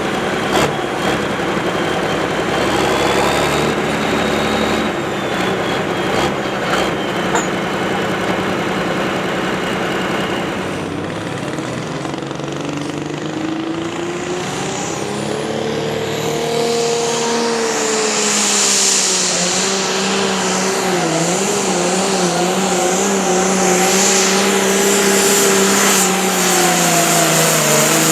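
A competition pulling vehicle's engine under heavy load. The engine runs with mixed noise at first, then from about eleven seconds in settles into a loud, high-revving drone whose pitch wavers up and down and grows louder toward the end, as it drags the weight sled down the track.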